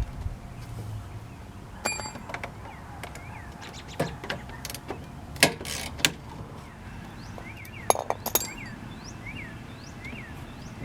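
Hand tools clinking and knocking on metal in short, irregular strikes, one of them ringing briefly, while the radiator is being worked loose.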